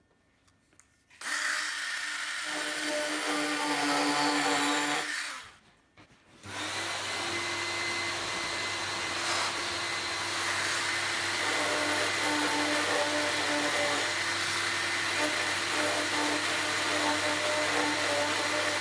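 Small handheld rotary tool running as it cuts a landing-gear hole through a composite model-aircraft fuselage: a steady whirr that starts about a second in, stops briefly around five seconds, then starts again and keeps going.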